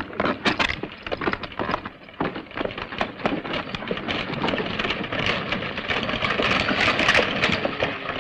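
A team of horses and a stagecoach approaching: a dense clatter of hoofbeats and rattling wheels that grows louder toward the end.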